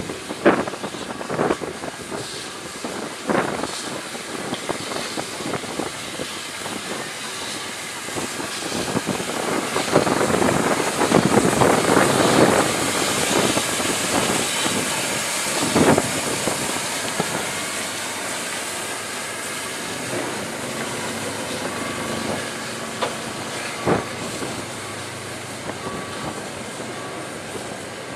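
Narrow-gauge 1940s superheated 0-4-0T tank steam locomotive moving slowly with its coaches, steam hissing from around the cylinders. The hiss swells loudest about ten to thirteen seconds in, and a few sharp knocks stand out now and then.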